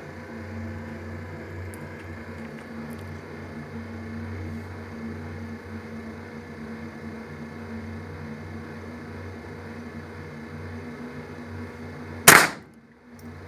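A steady low hum, then about 12 seconds in a single loud shotgun blast with a short ringing tail.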